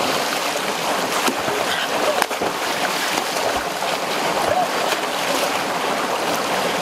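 Steady rush of a small waterfall and stream over rocks, with water splashing as a man thrashes through the shallow pool with his arms.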